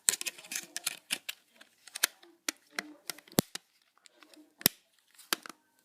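Hands handling a small phone and its plastic parts: a busy run of light clicks and rustling, then a few separate sharp plastic snaps in the second half, like a back cover's clips being pressed home.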